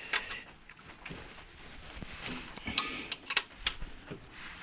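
A few sharp clicks and light metallic taps from hand tools working the motorcycle's front axle hardware, most of them bunched in the second half.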